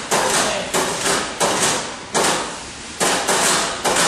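Hammer blows struck in a steady rhythm, about three every two seconds, each ringing out briefly before the next.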